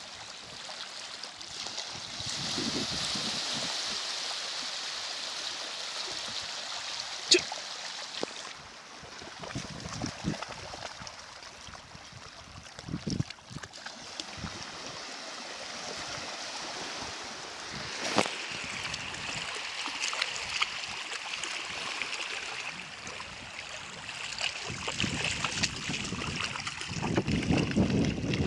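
Shallow sea water lapping and sloshing at the shore as a dog wades through it. There are a few sharp clicks, the loudest about seven seconds in, and gusts of wind on the microphone near the end.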